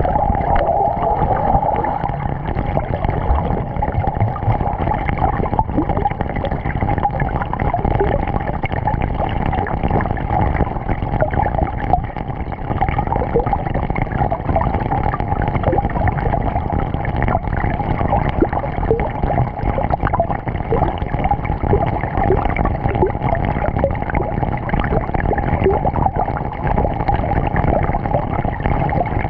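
Underwater sound picked up by a camera submerged in a swimming pool: a steady, muffled rush of water with a constant mid-pitched hum and scattered bubbly gurgles.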